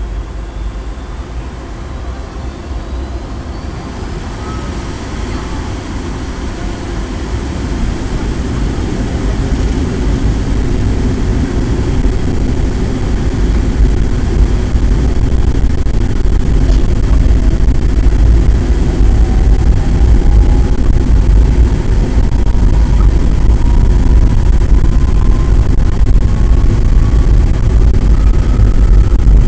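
Jet cabin noise of a DC-9-51 on its takeoff roll, heard from the forward cabin. The rear-mounted Pratt & Whitney JT8D turbofans go up to takeoff power and the airliner accelerates down the runway. The rumble grows much louder in the first half, and a faint rising whine comes in during the second half.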